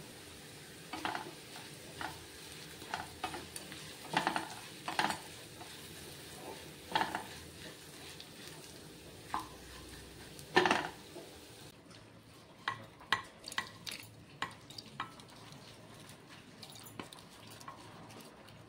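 Wooden spatula stirring and scraping dried prawns in a nonstick wok over a low sizzle: irregular scrapes and knocks about a second apart, the loudest about ten seconds in. About two-thirds of the way through the hiss drops away and a quicker run of lighter clicks follows.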